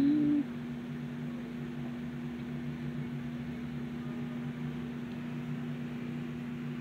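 A steady low hum with two fixed low tones runs throughout. A person's hummed tune cuts off about half a second in.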